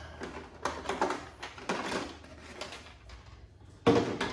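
Plastic handling noise as the body clips are pulled and the plastic body shell is lifted off an Arrma Senton 3S RC truck: a scattered run of small clicks and taps, with a louder knock near the end.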